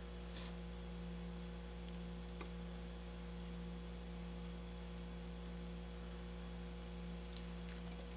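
Steady low electrical mains hum, with a few faint light clicks and a small tap near the end.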